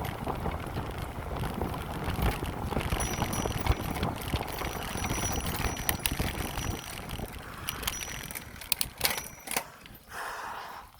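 Wind rushing over the microphone and the rumble of a bicycle being ridden on a paved path. A few sharp clicks come near the end, and then it gets quieter.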